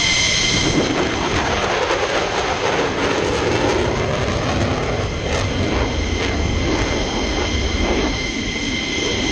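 Jet aircraft engine noise: a loud, steady roar with no breaks, its high whine fading early on.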